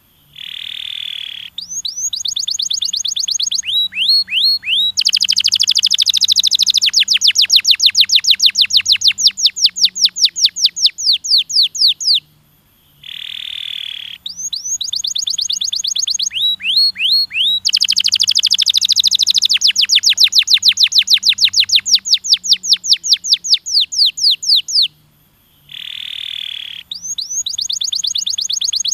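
Domestic canary singing: each phrase opens with a buzzy note, then runs into long, fast, evenly repeated trills. The same song phrase repeats twice, with a short pause between.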